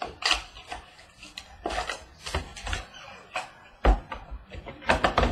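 Trading-card box and packs being handled and opened: irregular rustling and crinkling with sharp taps and clicks, and one louder knock about four seconds in.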